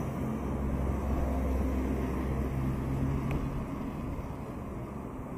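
Street traffic: a motor vehicle's engine rumbles past close by, loudest in the first three seconds and then fading.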